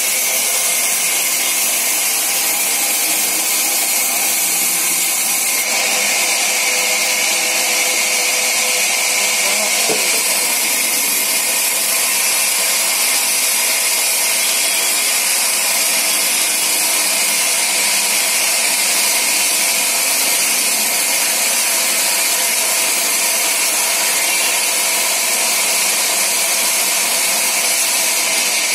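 Sawmill band saw ripping a log lengthwise: a loud, steady noise of the blade running through the wood, strongest in the high pitches.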